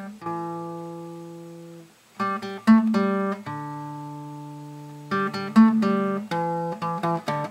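Acoustic guitar music: a chord rings out and fades, then picked notes and another long chord, then more picking.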